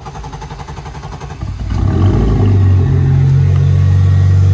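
Car engine running with the rear wheels lifted on jack stands, as the newly fitted differential is tested. It runs with an even pulse at first, then picks up about two seconds in and holds a steady, louder low hum.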